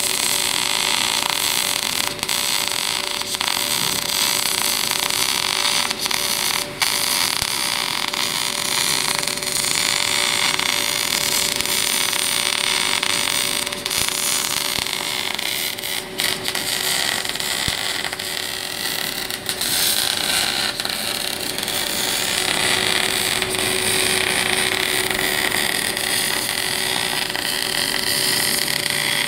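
MAG (gas metal arc) welding arc burning steadily on a pipe weld: a continuous crackling hiss with a few sharper pops, over a faint steady hum.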